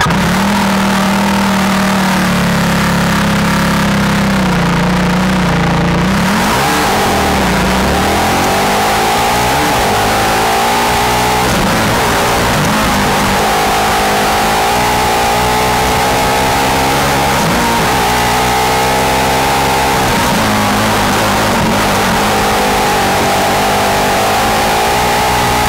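Formula SAE race car's engine heard onboard from the open cockpit. It is held at steady revs for about six seconds, then dips and climbs as the car pulls away, and rises and falls repeatedly under acceleration and lift-off through the course, over a steady rush of wind and road noise.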